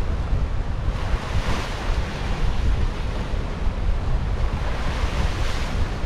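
Baltic Sea surf washing over shoreline rocks and wooden groyne posts, swelling twice, with heavy wind rumble on the microphone.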